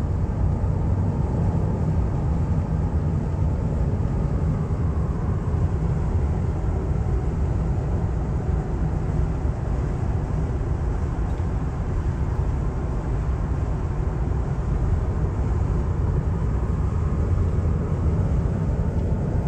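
Steady road and wind noise inside the cabin of a Tesla electric car cruising on the motorway at about 135 km/h: a deep, even rumble of tyres on asphalt, with no engine note.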